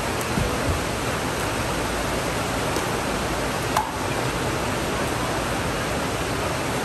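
A single sharp hit of a pickleball paddle on the plastic ball, nearly four seconds in, over a steady rushing background noise.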